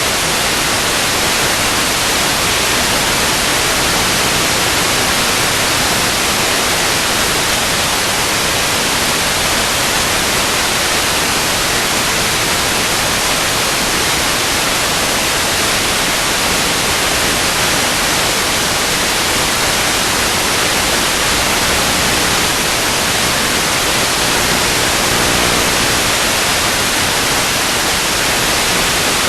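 Loud, steady static hiss that does not change, a flat rush of noise with no tones or events in it.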